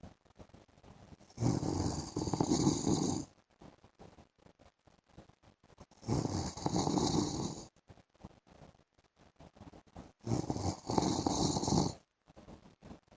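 A man snoring in his sleep: three long snores, each about two seconds, coming about every four seconds with quiet breaths in between.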